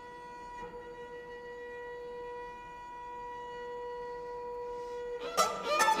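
Chamber music for mandolin, violins and double bass: one steady held note sounds alone, very even and almost pure in tone. A little over five seconds in, the ensemble breaks in with quick plucked and bowed notes.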